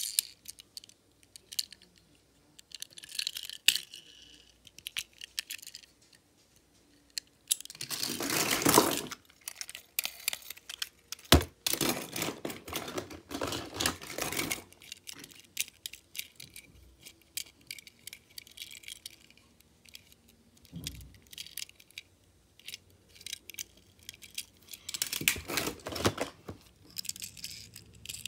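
Die-cast toy cars clinking and clattering against each other and a plastic storage bin as a hand digs through the pile, with scattered single clicks and several longer bursts of rattling.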